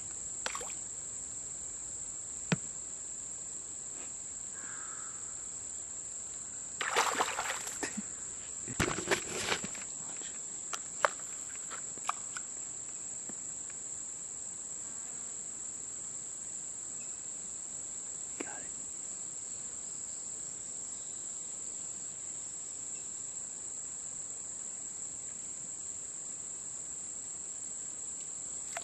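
Insect chorus, a steady high-pitched unbroken drone. A couple of brief louder noises come about seven and nine seconds in.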